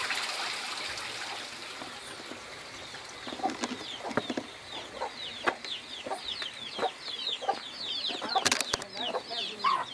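Farmyard chickens calling: a rapid string of high, falling peeps with scattered clucks and a few sharp knocks. Running water fades out over the first couple of seconds.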